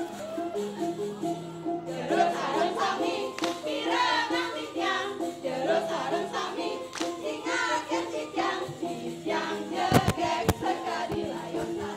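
A group of women singing a team cheer song (yel-yel) together over backing music. A few sharp knocks sound about ten seconds in.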